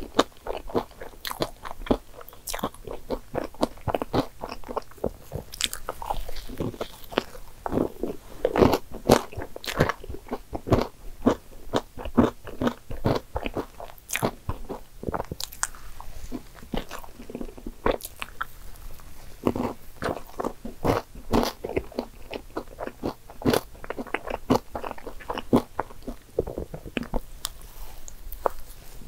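A person biting and chewing a soft, cream-topped soufflé dessert, with a dense run of quick mouth clicks and smacks.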